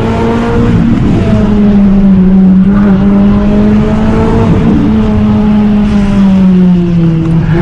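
Renault Clio RS 197's two-litre four-cylinder engine running hard under load, its pitch easing up and down as the car is driven along a winding road, with a brief dip about a second in.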